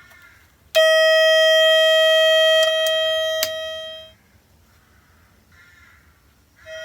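Tesoro Bandido metal detector's speaker sounding a loud, steady electronic tone on being switched on, the battery-check tone, for about three seconds before fading out, with two clicks near its end. A short beep at the same pitch comes near the end.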